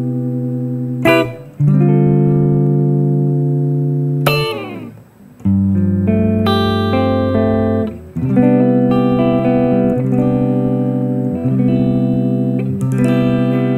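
Clean electric guitar chords, each struck and let ring, played through a Valeton GP200 modelling a Fender Twin Reverb amp with a compressor switched in. The chord changes every second or two, with a short gap about five seconds in.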